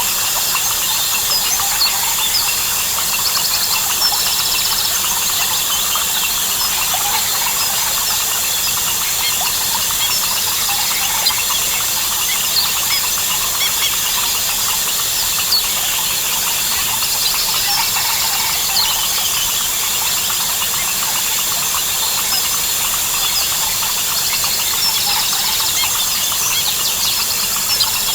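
Dense Amazon rainforest chorus: crickets and other insects trilling steadily, with many short frog and bird calls overlapping. A faster insect trill swells up now and then.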